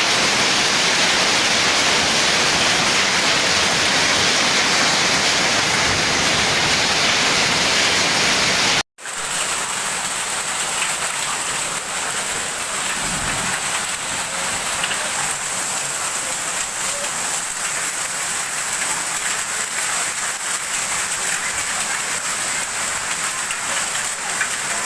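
Heavy rain mixed with hail pouring down in a steady rush, with scattered small ticks of hailstones striking. The sound drops out for an instant about nine seconds in and then carries on a little quieter.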